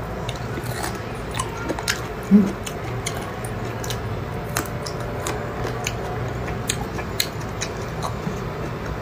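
Close-miked chewing of raw fish slices: scattered soft, wet mouth clicks and smacks, with a brief hummed sound about two and a half seconds in. A steady low hum runs underneath.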